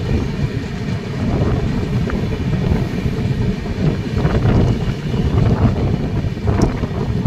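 Express passenger train running at speed, heard from the side of a moving coach: a steady, loud rumble of wheels on the rails with wind buffeting the microphone. A few sharp clicks stand out about four seconds in and again near the end.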